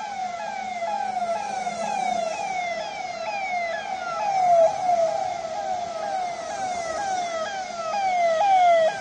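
Electronic siren sounding in quick falling sweeps, about two a second.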